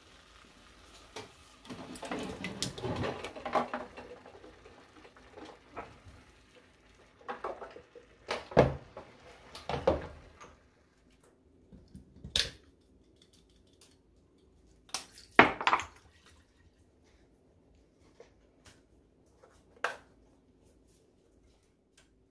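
Kitchen clatter of pots, dishes and utensils being handled: a busy run of clinking and scraping about two seconds in, then a handful of separate knocks and clanks a few seconds apart.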